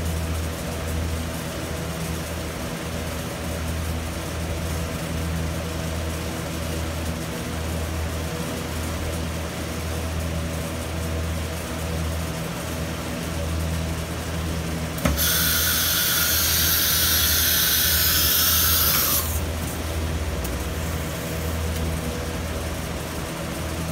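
CNC router running with a steady low hum. About fifteen seconds in, a loud air hiss starts suddenly with a click and cuts off about four seconds later.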